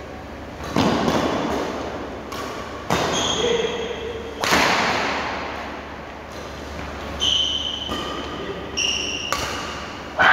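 Badminton rally: rackets striking the shuttlecock about eight times, each hit sharp and echoing around the hall. Short squeaks from shoes on the court floor come between some of the shots.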